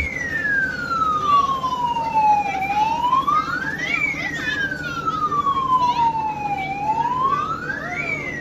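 Fire engine siren wailing: the pitch rises quickly over about a second, then falls slowly over about three seconds, repeating about every four seconds.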